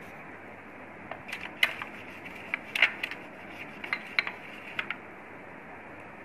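Irregular light clicks and knocks of a hand and cleaning cloth against the hard plastic chassis of an opened projector as it is wiped clean. About a dozen of them start about a second in and stop a little before the end.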